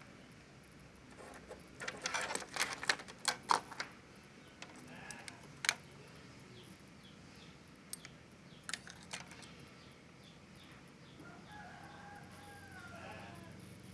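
A run of sharp clicks and knocks, densest in the first few seconds and scattered after, as parts are handled. Near the end a rooster crows faintly, one drawn-out call.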